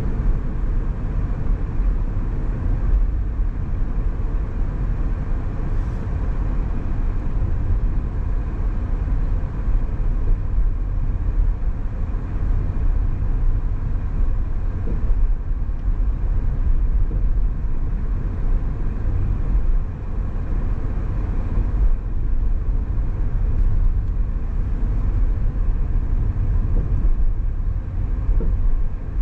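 Car driving on a road: a steady low rumble of tyre, road and engine noise.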